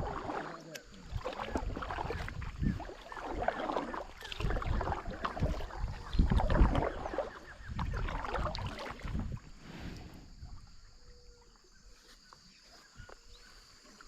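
Kayak paddling on a river: paddle blades dipping and splashing in the water, irregular and fairly loud, with wind buffeting the microphone, easing off about ten seconds in.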